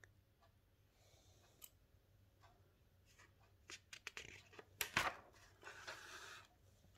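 Paper diary page being handled and turned over: scattered soft taps, then a quick run of crisp clicks with a sharp snap of paper about five seconds in, and a brief rustle as the page slides over.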